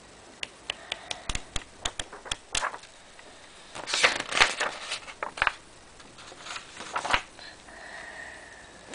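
Paper notebook being handled with its pages flipped: a quick run of light clicks and taps, then several bursts of paper rustling as pages turn.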